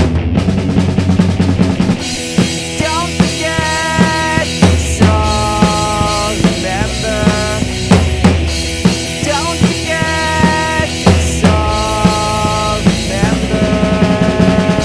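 Rock band playing an instrumental passage: a drum kit keeps a steady beat with kick and snare. About two seconds in, a lead melody of long held notes with slides between them comes in over bass.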